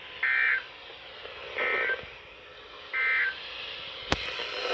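Three short two-tone data bursts of the NOAA Weather Radio SAME/EAS digital signal, about 1.3 s apart: the end-of-message code sent three times, marking the end of the Required Weekly Test. A single sharp click comes near the end.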